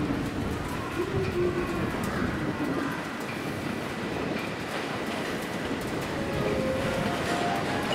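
Electric commuter train running in over station points, its wheels clicking over rail joints and switches, with a faint motor whine that shifts in pitch.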